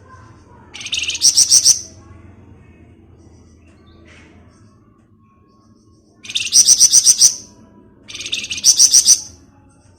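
Flamboyan songbird singing its 'ngebren' song: three loud bursts of fast repeated high notes, each about a second long, one about a second in and two close together near the end.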